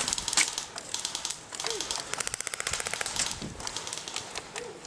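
Airsoft guns firing in rapid strings of shots, a fast clatter of clicks.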